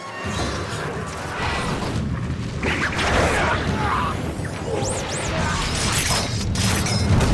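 Movie fight-scene sound effects: whooshes of thrown needles and blades flying through the air and sharp metallic impacts over a steady low rumble, with a couple of quick high whistling glides about five seconds in.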